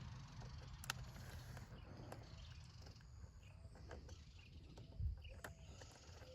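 Quiet handling sounds from assembling a compost tumbler by hand: a few light clicks and a thump about five seconds in, over a low rumble, with faint chirps.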